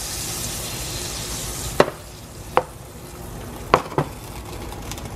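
Butter melting and sizzling in a hot nonstick frying pan. The sizzle thins out after about two seconds, and four short sharp clicks stand out in the second half.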